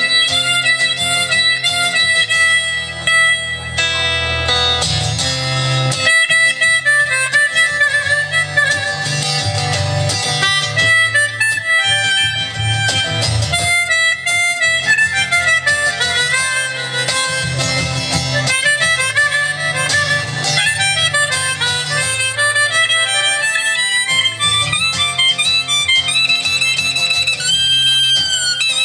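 Harmonica playing a solo over strummed guitar and a steady bass line: an instrumental break between verses of a song.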